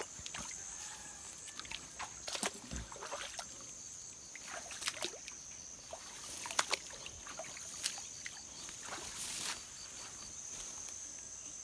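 Scattered small clicks, knocks and water sloshes over a steady high-pitched insect drone.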